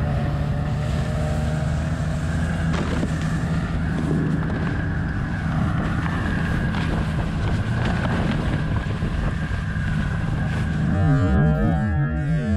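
Snowmobile engine running steadily under way, pulling a towed sled across snow. About eleven seconds in, the sound abruptly changes to a choppy, wavering drone.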